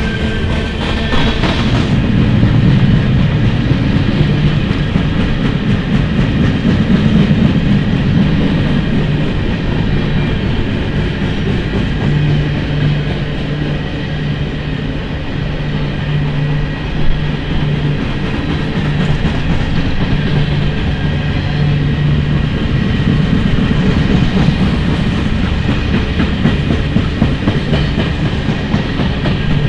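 Coal cars of a long freight train rolling steadily past, steel wheels clattering and rumbling on the rails.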